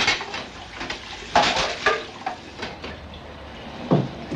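Water running from a kitchen tap into a metal pot, with the pot clattering against the sink several times.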